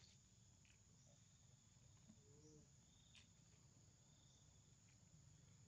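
Near silence: faint outdoor ambience with a steady high-pitched insect drone and a fainter on-off insect tone, plus a few soft ticks and one brief faint call about halfway through.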